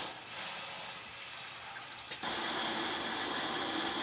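Water running from a hose into a car radiator's filler neck. About two seconds in the sound gets louder and takes on a steady ringing tone as the radiator fills.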